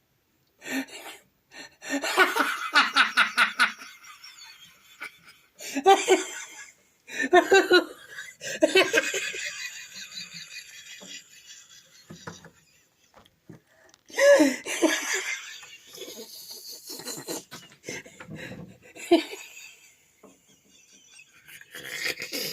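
A person laughing hard in several separate bouts, each a quick run of pulsed "ha" sounds, with short pauses between.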